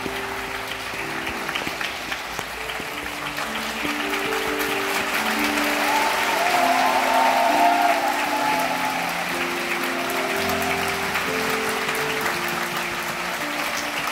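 Audience applause in a concert hall over soft, held chord notes from the band's instruments. The applause swells about halfway through, then settles.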